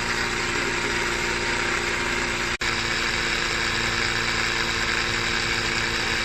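Oasser P6 12-volt portable tire inflator running steadily with an even motor-and-pump hum as it inflates a flat car tire. The sound drops out for an instant about two and a half seconds in.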